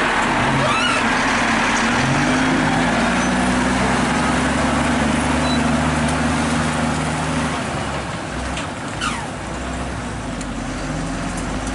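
Volvo FM truck's diesel engine pulling a lowboy trailer loaded with a tracked excavator slowly past close by, with tyre noise on the dirt road. The engine note rises about a second in, then holds steady, and eases off after about eight seconds as the truck moves away.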